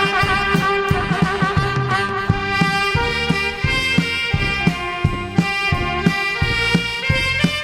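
A band playing a song: a sustained wind-instrument lead melody with vibrato over a steady drum beat.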